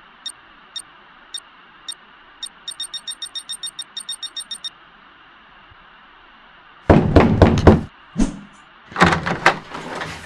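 Loud, rapid knocking and banging on a door in two bursts, the second a few seconds after the first. Before it comes a run of sharp, high clicks: a few spaced out, then about six a second for two seconds.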